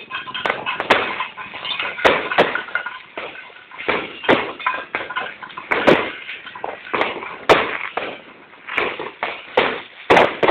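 Fireworks going off: a dozen or more irregular sharp bangs and pops, with crackling between them.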